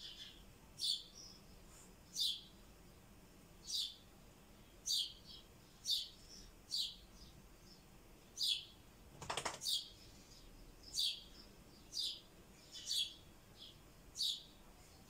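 Rosy-faced lovebird calling: short, shrill, falling chirps, about one a second, with a quick cluster of harsher, buzzier calls about nine seconds in.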